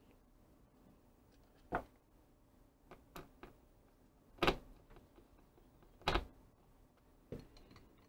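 A screwdriver driving a screw into the red plastic housing of a Weller Instant Heat soldering gun: a handful of short clicks and knocks a second or two apart, with quiet between.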